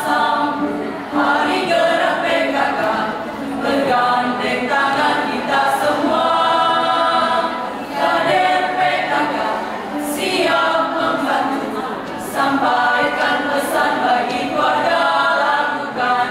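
Choir singing a PKK march, phrase after phrase with short breaks between them.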